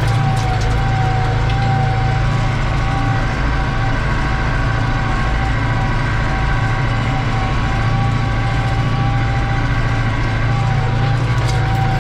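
New Holland TD85's turbo diesel engine running steadily under load while pulling a disc harrow, heard from inside the tractor cab. A low engine drone carries a steady high turbo whistle.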